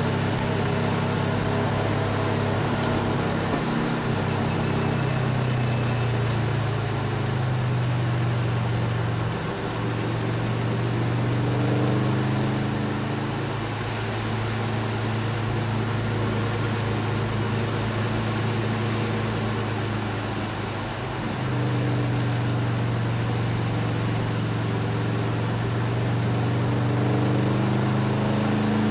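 Car engine heard from inside the cabin, running under load at circuit pace, over a steady hiss. Its note drops and then climbs again twice, about ten seconds in and again near twenty-one seconds.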